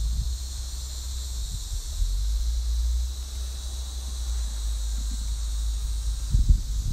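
Steady high chirring of insects outdoors, with wind buffeting the microphone as a low, uneven rumble. There are a few low thumps near the end.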